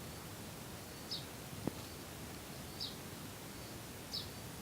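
A bird repeating a short, high, downward-slurred call three times, about a second and a half apart, over a steady hiss of outdoor ambience, with a single sharp click about halfway through.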